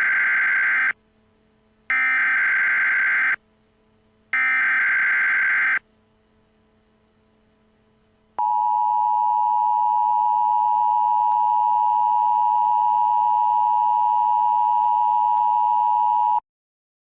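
Emergency Alert System tones. First come three bursts of SAME digital header data, each about a second and a half long with short gaps between them. After a pause of about two and a half seconds, the steady two-tone EAS attention signal sounds for about eight seconds and then cuts off suddenly.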